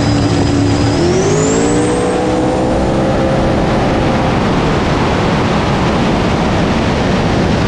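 Drag car engine at full throttle during a pass, heard from a camera mounted on the car: the engine note climbs over about a second, starting a second in, then holds, with a high whine rising along with it. About four and a half seconds in the engine note gives way to a loud rushing noise.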